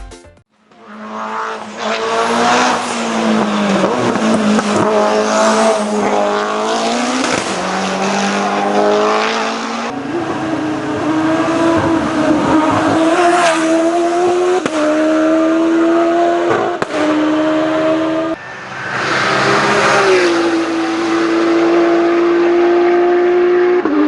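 Competition race car engine at full throttle, loud and close, its pitch dipping and climbing through the corners and stepping abruptly at each gear change.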